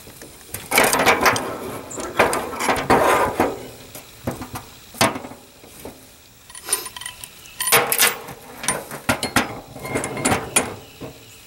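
Steel parts of a Log Ox log-handling tool clanking and clinking as it is handled and its pieces fitted together: an irregular run of metal knocks and rattles, the sharpest about five and about eight seconds in.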